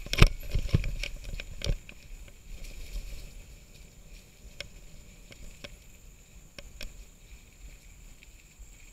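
Mountain bike rolling over a rough dirt trail, heard through a bike-mounted action camera: sharp knocks and rattles of the mount and bike over bumps, dense in the first two seconds, then only scattered clicks as the ride smooths out. A steady faint high drone runs underneath.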